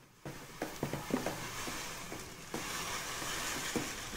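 Urea granules pouring from a plastic bag into a bucket of liquid soap solution, a steady hiss that gets louder about two and a half seconds in, while a thin metal rod stirs and clicks against the plastic bucket a few times.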